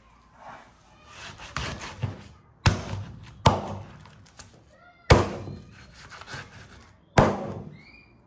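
Meat cleaver chopping roasted lamb ribs on a wooden cutting board: crunching as the blade cuts through the crisp crust, then four heavy chops.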